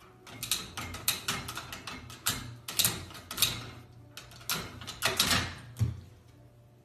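White metal baby gate rattling and clacking as a puppy paws at it and tugs the latch handle with its mouth, many irregular sharp clicks; near the end the latch gives and the gate swings open.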